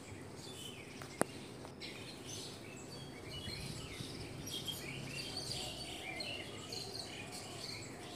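Small birds chirping faintly in the background, with one sharp click of a kitchen knife against a ceramic plate about a second in.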